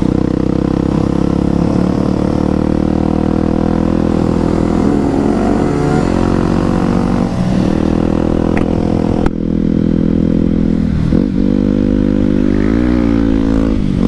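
Honda XR 250 Tornado's single-cylinder four-stroke engine running under way on a dirt road, heard close from the rider's seat. The revs are mostly steady, dip briefly a few times and climb again near the end.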